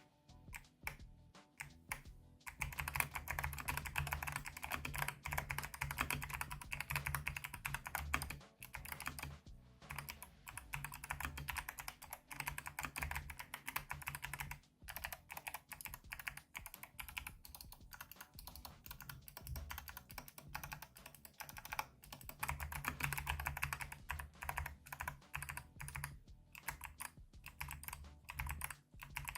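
Typing on a mechanical keyboard fitted with Kailh Box Jellyfish clicky switches: rapid, continuous key clicks from the switches' click bars, with a few brief pauses. The typing starts about two seconds in.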